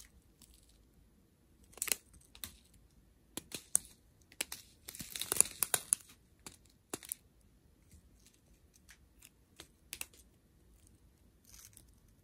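Clear plastic bags of round resin diamond-painting drills crinkling and rustling as they are handled, in scattered short crackles with a denser patch about five seconds in.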